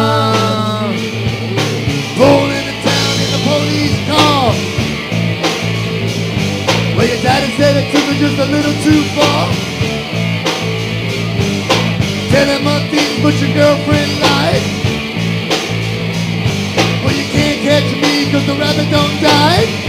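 Live rock band playing an instrumental section: electric guitar lead with string bends over a steady bass line and drum kit.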